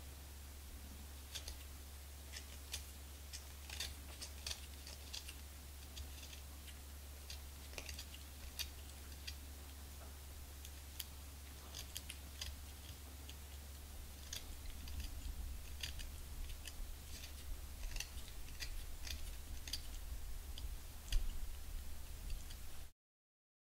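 Small knife scraping the bark off a cane clarinet-reed blank in short pulling strokes: irregular light scrapes and clicks, a few a second, coming faster in the last third, with one sharper click near the end. A steady low hum runs underneath.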